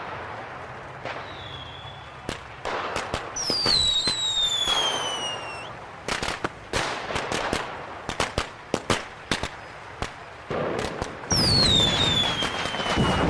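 Fireworks going off: a run of sharp bangs and quick crackling pops, with two falling whistles, one about three seconds in and another near the end.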